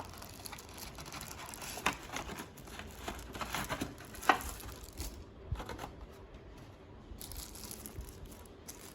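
Packaging crinkling and rustling as a small battery charger is unwrapped and handled, with scattered light clicks and taps; the sharpest tap comes about four seconds in.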